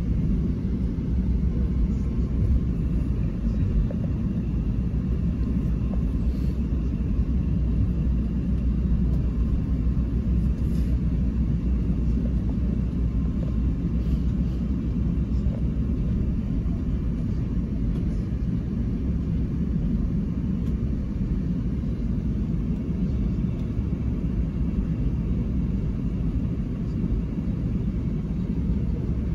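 Steady low rumble inside the cabin of an Airbus A380 as it taxis, with an even level and no spool-up.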